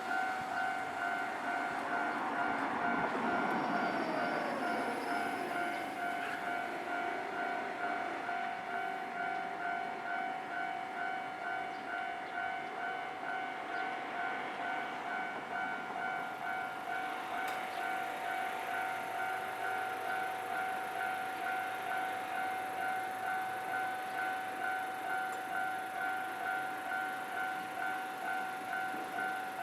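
Japanese railway level crossing warning bell ringing a steady, evenly repeating two-tone ding. A train runs past through the crossing in the first several seconds, its sound falling in pitch as it goes by.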